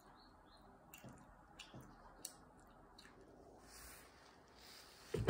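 A small child chewing food, with a few faint clicks, then a sudden loud thump near the end.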